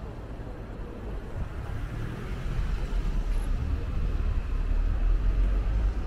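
A motor vehicle passing close by on the street, its low engine rumble growing louder from about a second in and loudest near the end, over background street noise.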